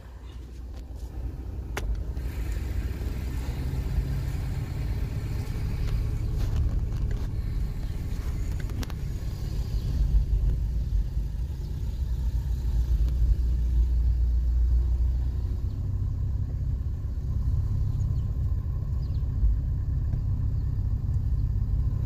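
Steady low rumble of a car driving, heard from inside the cabin. It builds over the first couple of seconds, then holds, with a few light clicks near the start.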